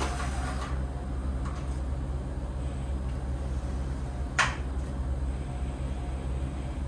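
Electric balancer hoists (Moon Lifter) running in parallel, giving a steady low hum with faint, short motor whines as they hold and follow a long suspended workpiece. One sharp click about four and a half seconds in.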